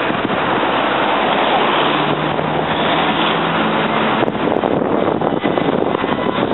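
Loud, steady rush of the flooded Arga river's fast brown water overflowing its banks, with a low hum joining for a couple of seconds in the middle.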